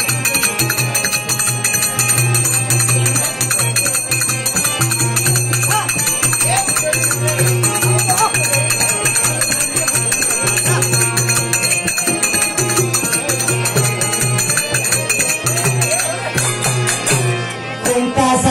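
Bhajan devotional music: steady metallic jingling over a low continuous drone. The jingling stops about two seconds before the end.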